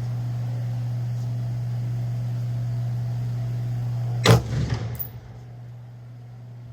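A steady low hum with one sharp bang about four seconds in, after which the background hiss drops away.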